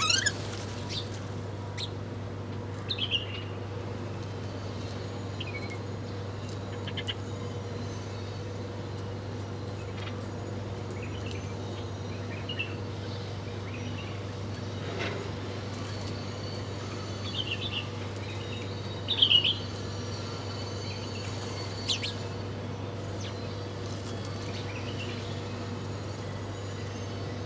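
Several small birds chirping now and then in short calls, the loudest bursts at the start and about two-thirds of the way through, over a steady low hum.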